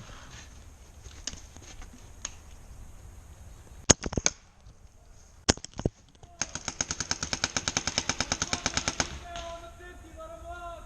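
Paintball markers firing: a few scattered shots about four and five and a half seconds in, then a rapid stream of about ten shots a second for nearly three seconds. A voice calls out near the end.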